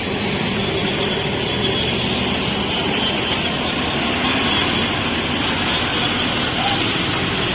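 A bus's diesel engine running steadily, with a short hiss near the end.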